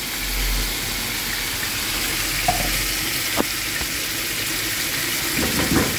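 A wet paste of ground onion, tomato, ginger and garlic sizzling steadily in hot oil and ghee in a wok as a spatula stirs it, with a single light tap about halfway through.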